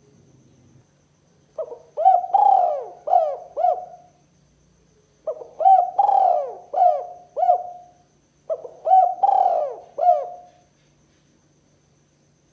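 Spotted dove cooing: three phrases, each a short note, a longer coo and then a few quicker coos, with short gaps between the phrases.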